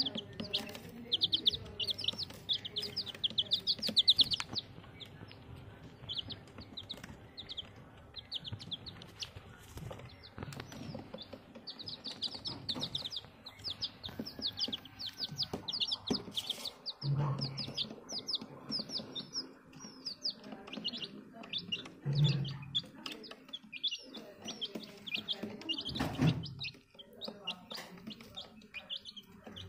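Several chicken chicks peeping in rapid runs of short, high, falling cheeps. Scattered knocks and rustles come from a hand handling them on a plastic-and-wire cage floor, with one louder knock late on.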